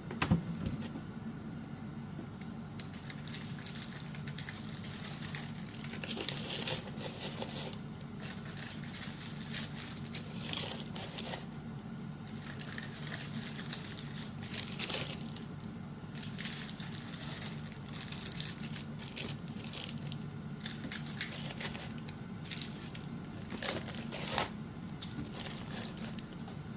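Irregular crinkling and rustling handling sounds, with a sharp knock just after the start, over a steady low hum.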